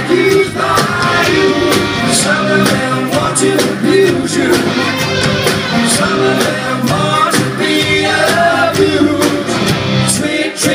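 Live rock band playing: a sung lead vocal over electric guitars and a steady drum beat.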